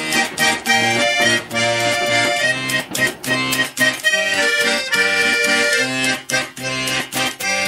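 Garmon, a Russian button accordion, playing a melody over short repeating bass chords.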